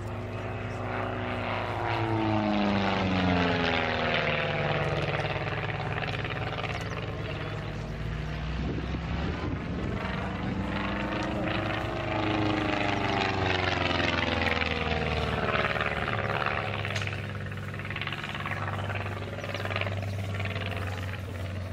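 Single-engine propeller aircraft flying aerobatics overhead. Its engine note slides down in pitch, then rises and falls again several times as the aircraft manoeuvres and passes.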